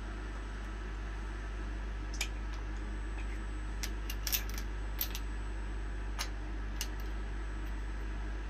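Light metallic clicks and taps, about nine spread over a few seconds, as small machined metal waveguide transitions are handled and lifted out of the fixture jaws in a steel machine vise, over a steady background hum.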